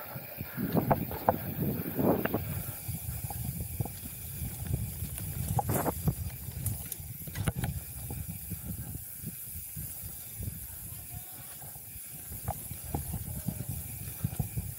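Mountain bike riding down a dirt singletrack: steady rolling rumble and rattle of tyres and frame over the rough trail, with hiss and rumble of wind on the camera mic and scattered sharp knocks as the bike hits bumps.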